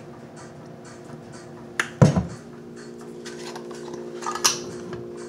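Plastic squeeze bottle of blue agave handled after pouring: a sharp click, then a knock about two seconds in as it is closed and put down on the counter, with another click a couple of seconds later. A steady low hum runs underneath.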